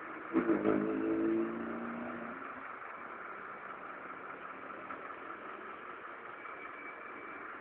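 Car engine revving briefly, starting about half a second in and dying away over the next two seconds, then a steady low background hum.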